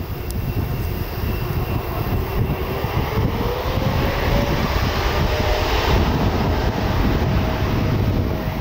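Boeing 787-8 Dreamliner's jet engines spooling up to takeoff thrust at the start of the takeoff roll: a whine rises and then levels off over a deep rumble that grows louder.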